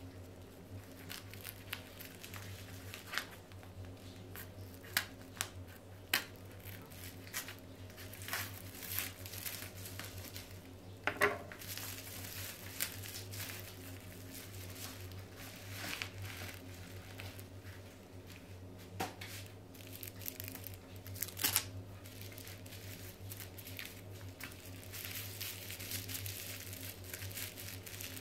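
Plastic packaging crinkling and crackling as scissors cut open a padded mailer and a bubble-wrapped parcel is pulled out and handled. It comes as irregular sharp crackles and rustles, the loudest about 11 and 21 seconds in, over a steady low hum.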